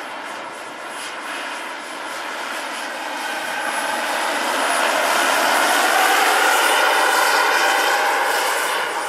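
Turbine engine and rotor of a large radio-controlled scale model BO-105 helicopter in flight: a steady high turbine whine over rotor noise. It swells louder over several seconds, with the pitch bending slightly, then drops away near the end.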